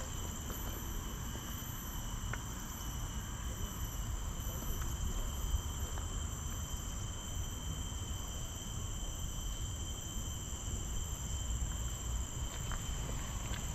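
A steady insect chorus: several high-pitched tones held without a break, over a low rumble.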